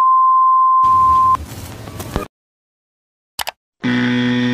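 Glitch-transition sound effect: a steady high test-tone beep for about a second and a half, a burst of static hiss, a brief blip, then a loud buzzy low tone starting near the end.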